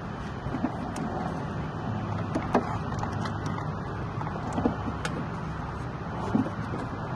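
Light clicks and knocks of hands handling metal brake lines around a brake booster, with three sharper knocks a couple of seconds apart, over a steady low hum.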